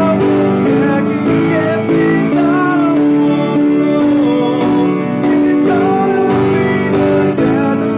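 A man singing a slow song in long, held notes that glide between pitches, over steady chords from an instrumental accompaniment.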